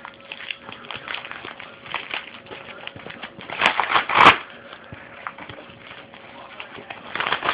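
Packaging being worked open by hand: scattered rustling, crinkling and clicking, with a louder stretch of scraping and tearing about four seconds in that includes two sharp clicks. The package is hard to open.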